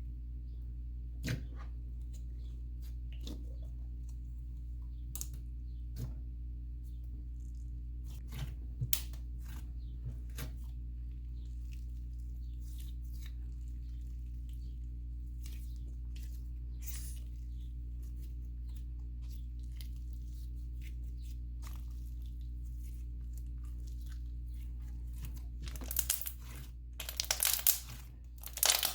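Slime being squished and poked by hand, giving scattered soft crackles and pops, with a denser run of louder crackling near the end. A steady low hum lies under it.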